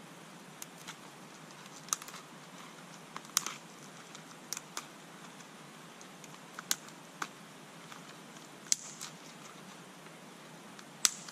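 Dry shredded cedar bark crackling in a string of short, sharp, irregular clicks as it is worked between gloved hands into a tinder bundle with fireweed fluff. The last click, near the end, is the loudest.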